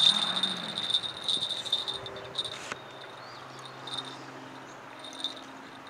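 A freshly landed catfish flopping and slapping on the wet mud of a riverbank, with the loudest slap right at the start. A thin, high chirping tone pulses on and off through the first few seconds.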